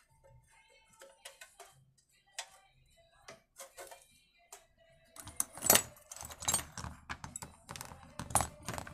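Recoil starter housing being fitted onto a small generator engine: scattered clicks at first, then a denser run of clicking and clattering from about five seconds in, with a couple of sharper knocks as it is pushed into place.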